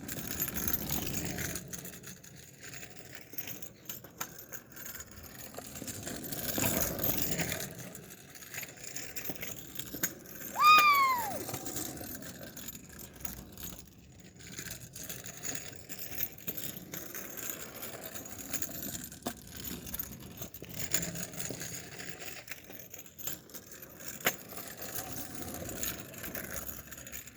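Kick scooter rolling and rattling over pavement. About eleven seconds in comes one short, high squeal that falls in pitch, the loudest sound in the stretch.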